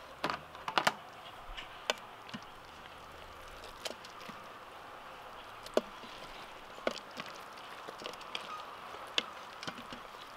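Scattered light clicks and taps, about a dozen spread unevenly, from cookware and utensils being handled around an opened Instant Pot pressure cooker, over a faint steady hiss.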